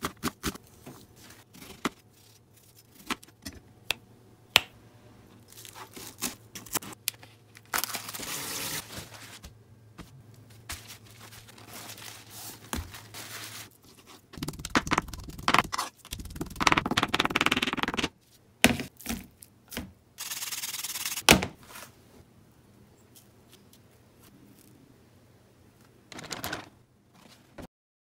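Kitchen knife slicing and chopping onion and raw fish on a plastic cutting board: irregular sharp knocks of the blade on the board, with stretches of noisy scraping and cutting.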